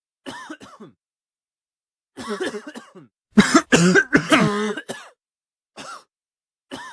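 A person coughing in separate bouts: a couple of light coughs, then a harder, louder run of coughs about halfway through, and a few single coughs near the end.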